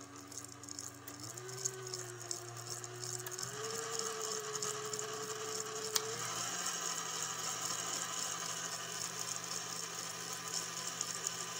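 GE stand mixer's motor and planetary gearbox running without a load on freshly packed grease, its whine stepping up in pitch twice as the speed is raised, then settling to a lower steady hum after a click about six seconds in. Under it a fast chicka-chicka chatter, which the owners put down to the new grease squishing around in the gearcase.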